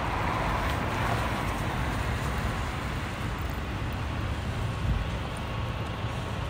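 Road traffic on a wet city street: a steady noise of passing cars and other vehicles.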